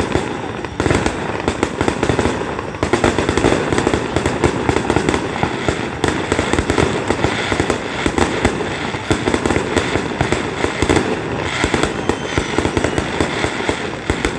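Aerial firework shells bursting in rapid succession: a dense, unbroken run of booms and crackling reports.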